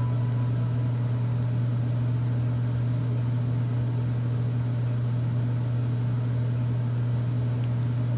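Fluval FX6 canister filter's pump motor running with a steady low hum.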